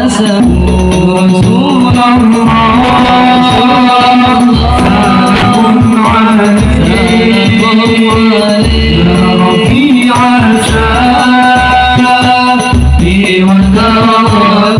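A group of men singing sholawat, devotional praise songs for the Prophet, into microphones through a sound system. Low drum beats and light jingling percussion accompany them.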